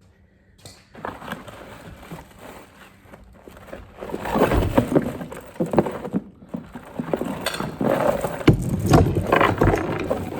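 A 2-ton chain hoist being pulled out of its packaging: cardboard and wrapping scraping and rustling, with irregular knocks and clanks from handling. It grows busier and louder about four seconds in.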